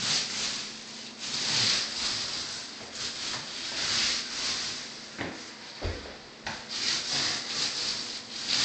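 Wallpaper primer being applied to a wall in repeated strokes: a rhythmic rubbing swish, roughly one to two strokes a second. A short low bump about two-thirds through.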